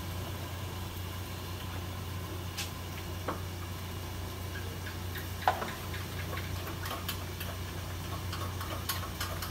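Scattered light clicks, taps and a brief clink of kitchen items being handled at a counter, over a steady low hum.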